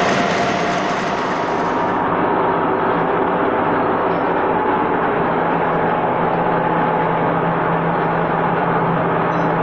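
Metal-turning engine lathe running steadily, its spindle and gear train giving a loud hum with several steady tones. The high hiss drops away suddenly about two seconds in while the machine keeps running.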